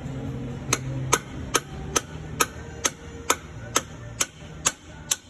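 Hammer tapping a new brake S-cam bushing into its bracket with evenly spaced strikes, about two a second.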